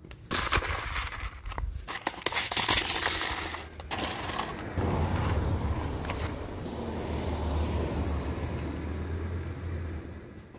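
Cat food being put out on gravel close by: dry kibble rattling and crunching as it is poured, and food bowls clattering as they are set down. The clatter is busiest for the first four seconds, then gives way to steadier scraping and rustling over a low hum.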